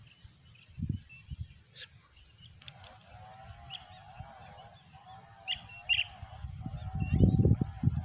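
Wild birds calling: short high chirps, then a wavering, drawn-out call that starts about three seconds in. Low rumbling thumps on the microphone grow loudest near the end.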